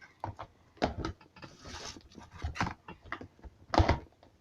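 Sticky jelly and clear-glue slime being handled and stretched, giving irregular clicks and sticky pops, the loudest about four seconds in.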